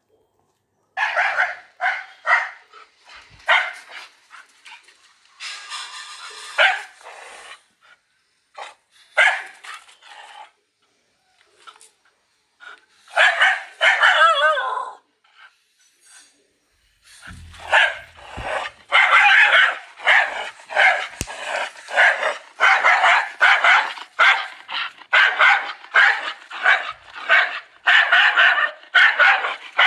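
Dogs barking angrily. The barks come in short bursts with gaps at first, then become near-continuous and rapid from a little past the middle.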